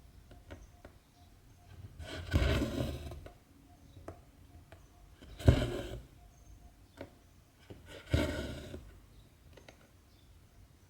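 Hand cross-stitching: cotton embroidery thread pulled through 14-count Aida fabric three times, the middle pull short and sharp, with light ticks of the needle between.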